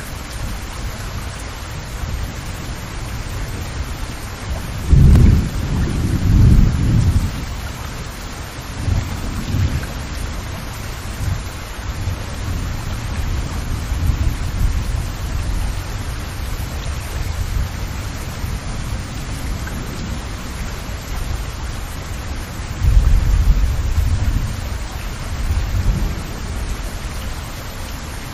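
Steady rain falling, an even hiss, with deep rumbles swelling up about five seconds in and again near the end.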